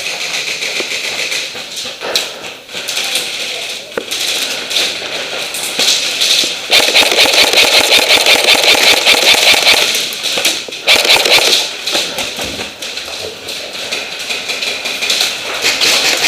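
Airsoft guns firing rapid full-auto bursts, with one long burst of about three seconds near the middle and shorter bursts around it.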